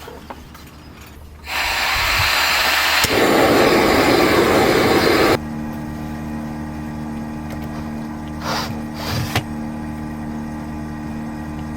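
A machine starts with a loud rushing noise for a few seconds, then settles into a steady hum, with a few light knocks near the end.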